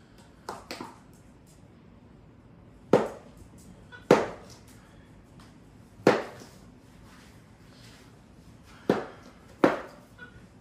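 A hard object struck seven times at irregular intervals: two light knocks near the start, then five loud sharp bangs, each with a short ringing decay.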